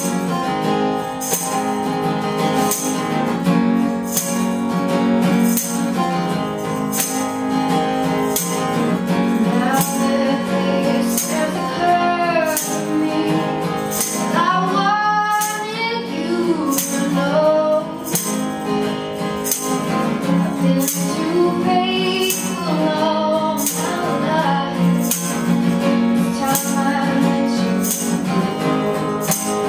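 A woman singing live to a strummed steel-string acoustic guitar, with a regular high rattle marking the beat from a small hand percussion instrument.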